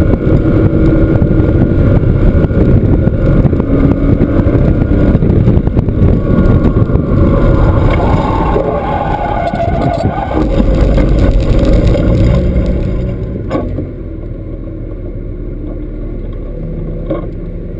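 Porsche engine and road and wind noise inside the car at speed. About three-quarters of the way through, a sharp click comes and the sound drops to a much quieter, steady low running.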